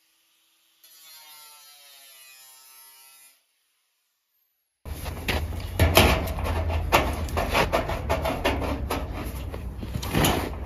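Sheet-metal gutter being cut out by hand: a loud, rapid, irregular run of crisp clicks and crunches with a low rumble underneath. It starts about five seconds in, after near silence broken only by a faint tonal sound.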